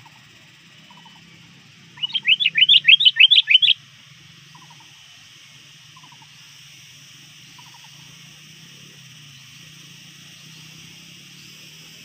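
Sooty-headed bulbul (kutilang) decoy bird giving a rapid run of about a dozen sharp rising chirps, lasting under two seconds, about two seconds in: a call to draw rival bulbuls.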